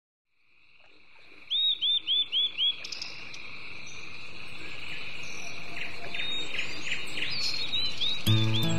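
Outdoor summer ambience fades in: a steady, high insect drone with a bird calling over it. The bird gives a quick run of five loud, arching notes, then more scattered calls. Music begins just before the end.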